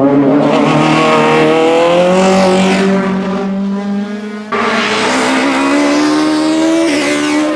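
Two-litre four-cylinder rally kit-car engine at full throttle, its pitch climbing as the car accelerates hard. About four and a half seconds in the sound breaks off abruptly and resumes straight away with another hard, rising acceleration.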